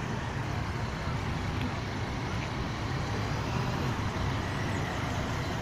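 A line of cars driving past on a road: a steady rumble of engines and tyres.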